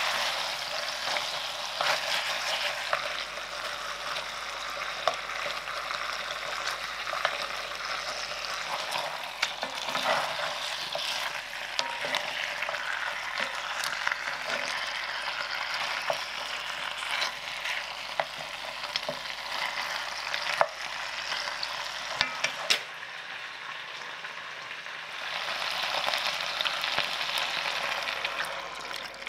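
Pork rib pieces sizzling as they fry in oil in an enamelled cast-iron pot, with a wooden spatula clicking and scraping against the pot as they are stirred. The sizzle dips briefly about three-quarters of the way through, then picks up again.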